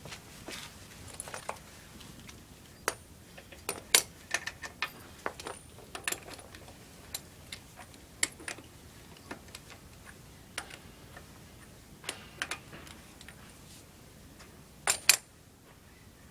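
Irregular metallic clicks and clinks of hand tools and wheel nuts being handled during a tyre change, with a louder double clack near the end.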